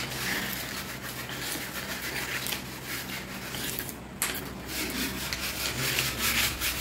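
Metal-bladed putty knife scraping an old paint coat off a wall in a series of scraping strokes, with one sharper stroke about four seconds in. The paint never bonded to the wall and lifts away in sheets like wallpaper.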